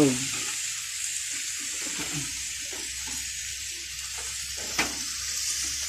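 Bitter gourd frying in an aluminium wok, a steady sizzle as beaten egg is poured over it, with one sharp clack near the end.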